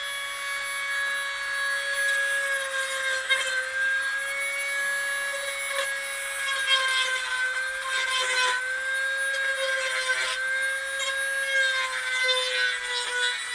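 Small electric saw's motor whining steadily as it cuts a piece of wood, its pitch sagging slightly under load now and then, with a few short knocks.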